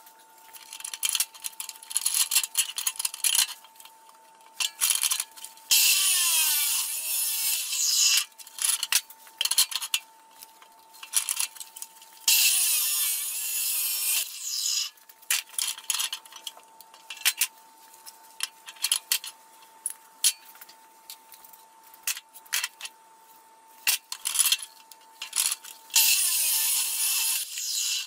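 Abrasive chop saw cutting through steel tubing three times, each cut lasting about two seconds. Between the cuts come sharp clinks and knocks of the metal being moved and clamped in the saw's vise.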